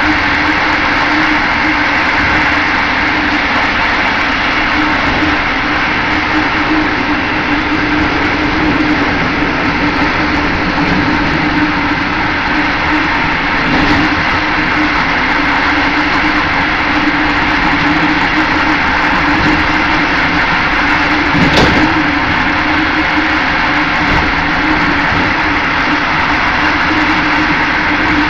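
Passenger train at speed heard from inside its last car: a steady rumble of wheels on the rails with a constant hum, and one brief knock about three-quarters of the way through.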